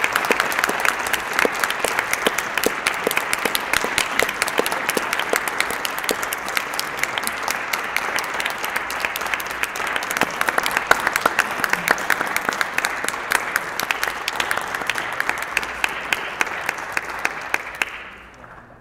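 Audience applauding: steady, dense clapping from many hands that dies away quickly near the end.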